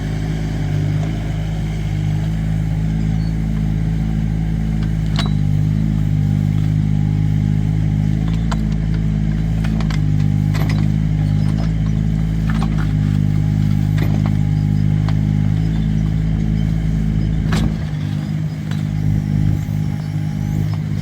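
Excavator's diesel engine running steadily under digging load, with several sharp clanks as it digs; the engine note eases near the end.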